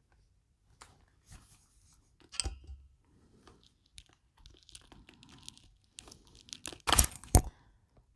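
Handling noise of a USB charging cable being unplugged: rustling and scattered small clicks, then two sharp clicks close together near the end.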